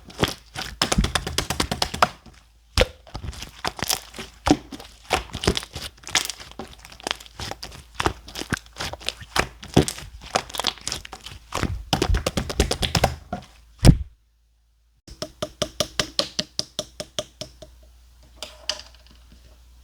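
Clear slime being squished and pressed by hand, giving a dense run of sharp clicks and pops. A second of silence breaks it partway through, then a more even run of clicks follows and fades.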